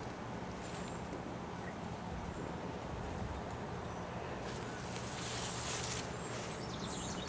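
An insect calling in steady high-pitched pulses, about six a second, over a low background hum, with a brief soft rustle of foliage a few seconds in.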